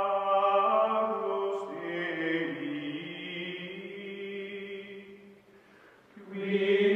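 Outro music of choir-like chanting in long held notes. It fades away about five seconds in and swells back up near the end.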